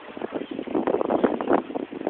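Wind buffeting a phone's microphone, an uneven rushing noise that rises and falls in gusts.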